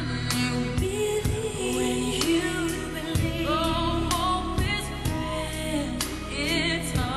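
A recorded song with wavering, vibrato-laden singing over sustained accompaniment, played as the track for a lyrical dance routine.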